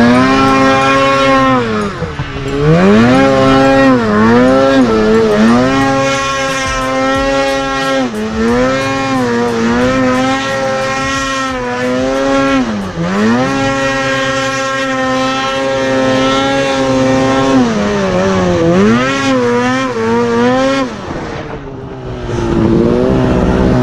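A snowmobile's two-stroke engine running hard under the rider, its pitch holding high and then dropping and climbing again several times as the throttle is let off and reopened.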